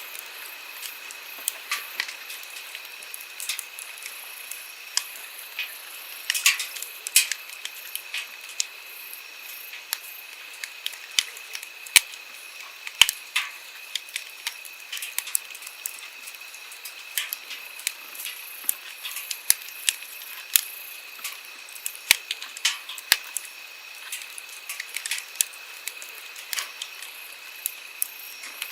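Wood campfire crackling, with frequent sharp, irregular pops and snaps over the steady rush of a flowing stream.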